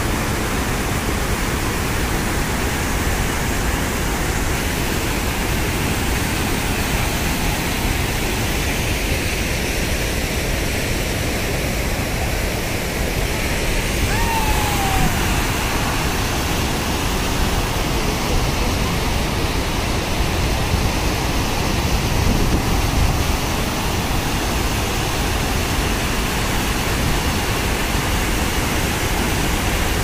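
Steady rush of a small waterfall: water from a dam in monsoon flood spilling over its far end and falling.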